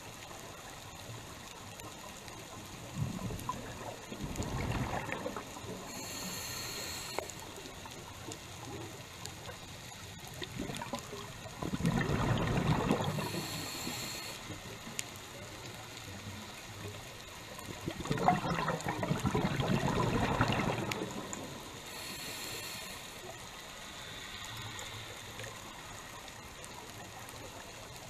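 Scuba diver breathing through a regulator underwater: three bubbly exhalations several seconds apart, each followed by a short high hiss as the regulator delivers the next breath.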